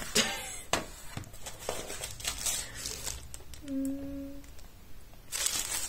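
Paper and plastic mailer packaging being handled and opened: irregular rustles and crinkles, becoming a dense, louder crinkling about five seconds in.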